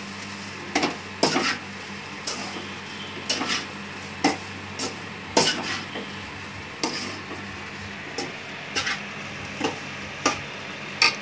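Metal spoon stirring and scraping egg fried rice in an aluminium kadai, with irregular scrapes and knocks against the pan, about one or two a second, over a steady low hiss.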